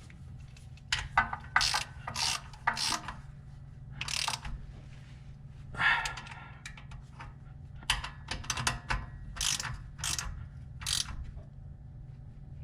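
Hand ratchet wrench clicking in short, irregular runs as it tightens the bolts of a starter motor.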